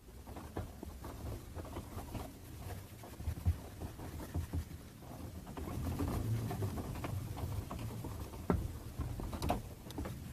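Handling noises at a workbench: irregular small clicks, taps and scraping, with a few sharper knocks about three and a half seconds in and near the end.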